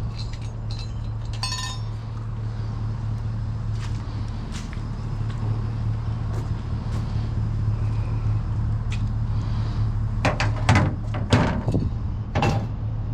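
A vehicle engine running steadily, with scattered metallic clinks and a burst of loud metal clattering about ten seconds in.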